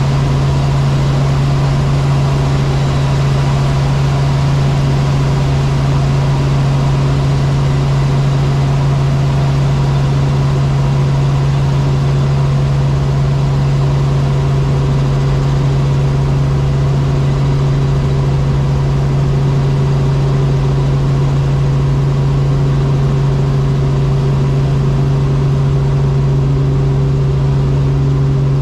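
Robinson R44 helicopter heard from inside the cabin in flight: the six-cylinder piston engine and rotors make a loud, steady drone with a strong low hum. A slightly higher tone joins about halfway through.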